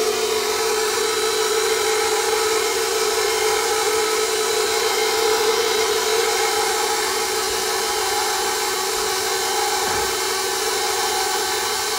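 Electric stand mixer running at a steady speed, its motor humming evenly as the flat beater turns through thick cheesecake batter in the steel bowl.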